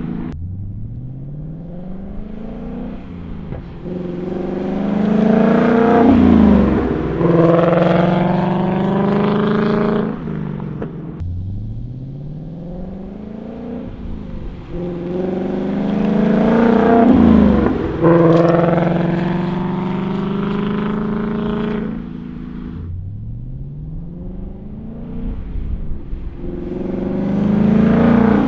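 Ford Mustang Dark Horse 5.0 L Coyote V8 breathing through a combined H- and X-pipe resonator-delete exhaust, accelerating under load with the revs climbing. There are three similar runs, each swelling to a loud peak and breaking off sharply.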